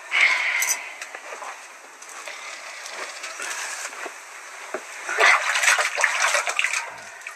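Hands working a large sheet of wet bread dough over a metal bowl: splashing and light clatter against the bowl, loudest just after the start and again about five seconds in.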